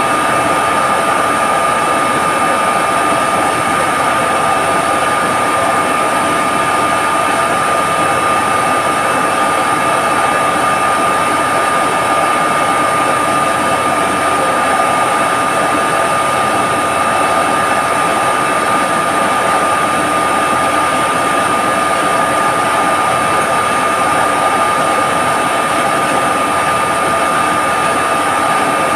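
Steady drone of an industrial reverse osmosis plant's machinery running, with a constant high whine over a loud even rush.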